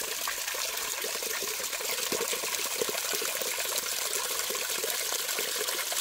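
A small trickle of water falling off a mossy rock ledge and splashing into a shallow pool: a steady trickling hiss dotted with many small splashes.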